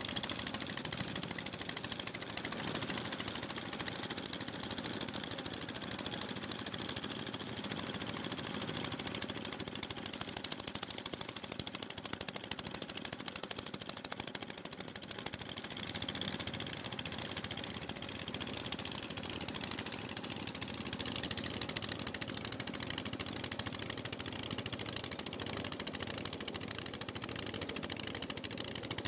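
Diesel engine of a wooden river passenger boat running steadily under way, a fast, even chugging.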